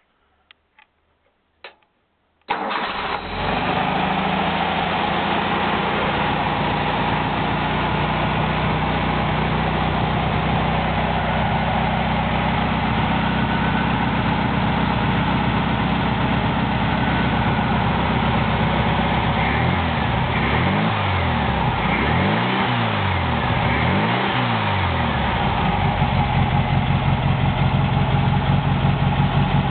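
1300cc Volkswagen Beetle air-cooled flat-four engine on a test stand: a few light clicks, then about two and a half seconds in it fires and settles into a steady run. Its running note swings up and down three times shortly past the twenty-second mark.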